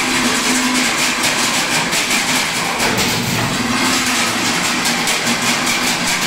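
Chain-link fence weaving machine running: a steady mechanical clatter with rapid clicking as it forms wire into mesh.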